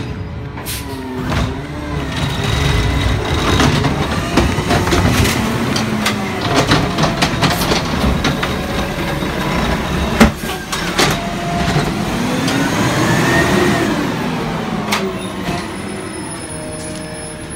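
Natural-gas front-loader garbage truck dumping a cart with its automated arm: the engine and hydraulics rise and fall in pitch as the arm lifts the cart over the cab and lowers it again. There are repeated metallic clanks and one loud bang about ten seconds in.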